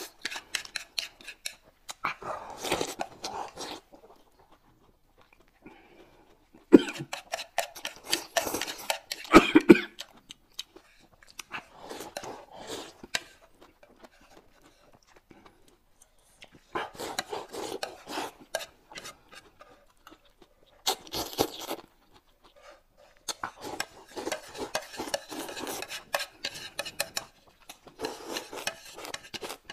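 Close-up eating sounds coming in bursts with short pauses: noodles being slurped and chewed, with chopsticks and a spoon clicking against a plate and a glass bowl.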